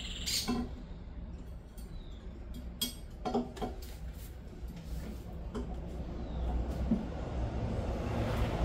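Scattered metallic clicks and clinks of hand tools and parts being handled during work on a car's rear suspension, a few sharp knocks in all, over a low steady background rumble.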